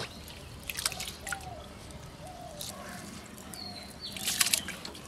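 Liquid splashing and dripping as a hand swishes rice in a bowl of water, then a handful of washed rice splashing into a pot of milk, the loudest splash about four seconds in.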